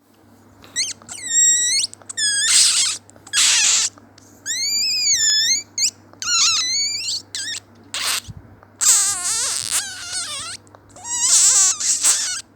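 A person imitating dolphin calls with the voice: short, high-pitched squeaky whistles that glide up and down, alternating with raspy, buzzy squeals, with brief pauses between calls.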